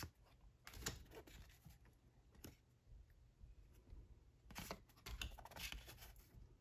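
Faint rustling and sliding of matte-finish tarot cards being flicked through by hand: a few short scrapes about a second in, one near the middle, and a cluster in the last two seconds.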